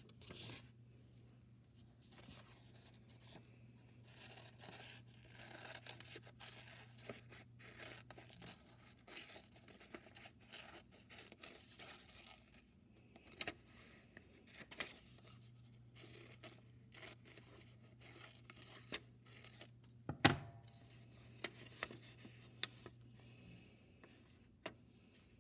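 Scissors snipping through folded construction paper in short cuts, with the paper rustling as it is handled and unfolded. One louder knock about twenty seconds in.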